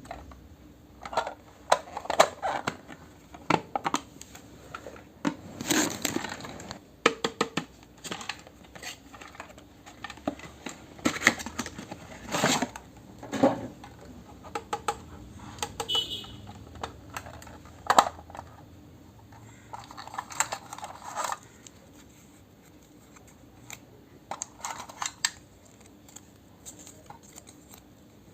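Small toy kitchen pieces and their packaging being handled: irregular clicks, taps and short crinkles, growing sparser near the end.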